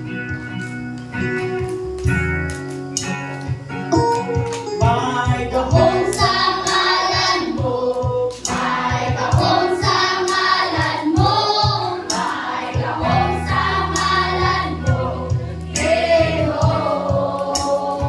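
A group of voices singing a worship song together to guitar accompaniment. Only the guitar chords are heard at first; the voices join about four seconds in.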